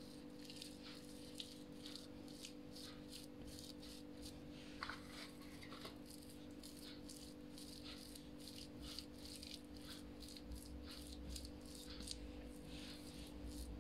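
Hands pressing, patting and rubbing a folded pastry dough on a countertop: faint quick scratchy strokes, several a second, over a steady low hum.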